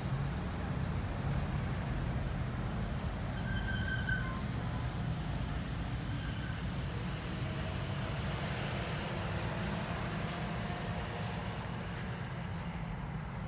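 Steady low rumble of outdoor background noise, with a short high-pitched tone about four seconds in and a fainter one about two seconds later.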